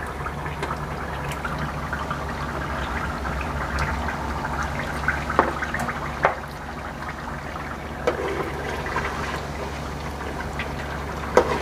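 Hot oil and masala sizzling and bubbling steadily in a steel kadhai as fried chicken pieces are added to it, the stage where the fried chicken goes back into the spiced oil. A few sharp clinks of a steel slotted spoon against the pan come through, one about five seconds in and another near the end.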